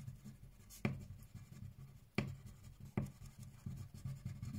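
Wax crayon colouring back and forth on paper over a wooden desk, a quiet scratchy rubbing, with three sharp taps of the crayon against the page.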